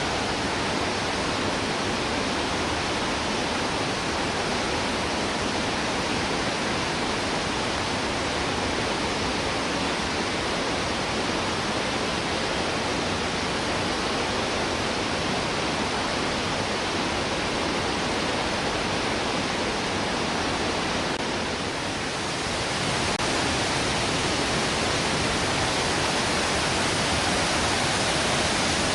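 Waterfall's steady rush of falling water, a dense, even noise with no pauses, dipping briefly about 22 seconds in and then a little louder.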